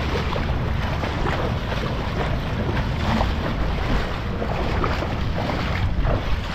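Wind noise on the microphone over irregular splashing of legs wading through shallow sea water.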